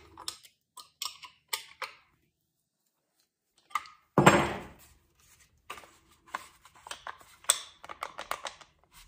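Metal clicks and clacks of a two-pin spanner wrench working an angle grinder's flange nut to tighten the wheel, with one loud clattering knock about four seconds in.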